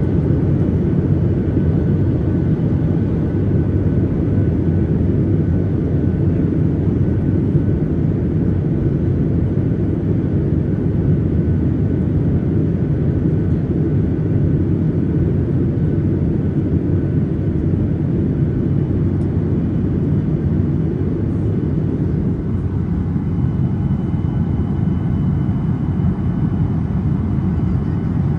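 Steady low rumble of a moving vehicle, unbroken throughout.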